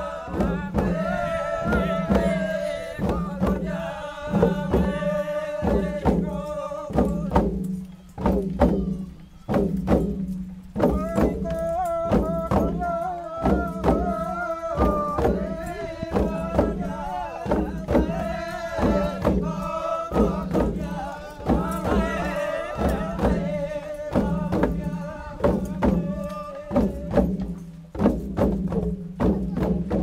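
A group of dancers chanting in unison to a steady beat of long wooden hand drums, about two strikes a second. Twice, about eight seconds in and near the end, the chanting drops away briefly and only the drumming goes on.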